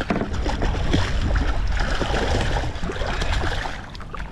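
Lake trout thrashing and splashing at the water's surface beside a kayak as it is scooped into a landing net: irregular watery splashes.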